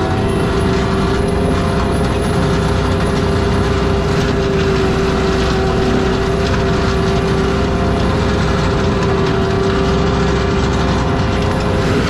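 ASV RT-120F compact track loader running a forestry mulcher head, the engine and mulcher drum running steadily at full speed with a constant high whine.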